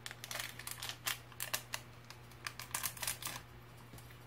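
Small clear plastic candy packet crinkling and crackling in the fingers as it is worked open by hand: quick, irregular crackles in several short runs.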